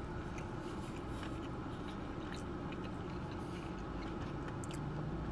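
A man chewing a mouthful of sushi roll, with faint soft clicks, over a low steady hum.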